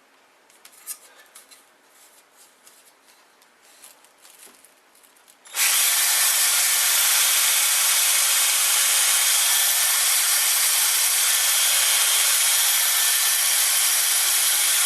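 Handheld electric drill boring through clamped wooden blocks: it starts suddenly about five seconds in and then runs steadily and loudly. Before it come a few faint clicks and taps.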